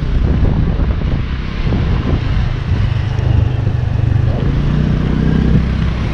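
Motor scooter engine running steadily at riding speed, heard from the pillion seat with wind and road noise over it.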